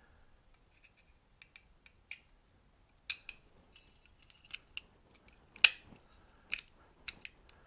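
Scattered light metallic clicks and clinks of a freshly drilled metal plate being handled against the drill press vise, with one louder clink about five and a half seconds in.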